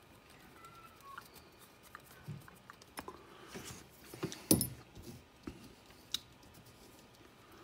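Small clicks, taps and knocks of hand tools and plastic and metal parts being handled on an RC crawler's front axle and wheel, with one sharper knock about halfway through.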